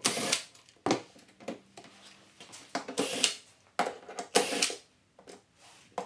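Cordless drill-driver backing out the screws that hold a dishwasher door's front panel, in several short bursts with gaps between them.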